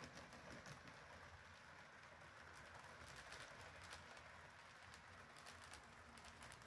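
Faint running of an HO scale Bachmann EMD F7 model locomotive pulling a train of freight cars slowly around the track: a soft steady whir with light, irregular clicks of the wheels running over the rail joints.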